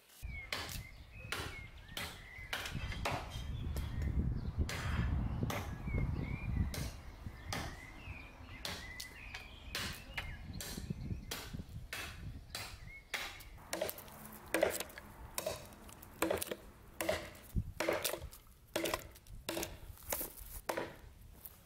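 A heavy chopper knife forged from a truck leaf spring, chopping into green wood: a run of sharp blade strikes biting into the wood, about one or two a second.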